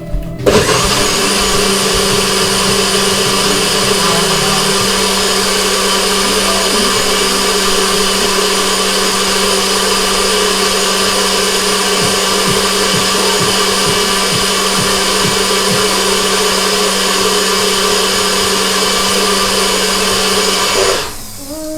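Electric blender running steadily, crushing frozen berries with vodka and water into a slush; it starts about half a second in and cuts off just before the end.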